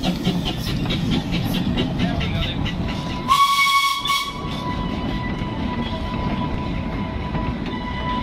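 A narrow-gauge steam locomotive and its goods wagons running past at close range. Its exhaust beats fade early on, then a short loud blast of whistle and steam hiss comes about three seconds in. After that a steady high squeal from the wheel flanges on the curve runs over the rumble of the passing wagons.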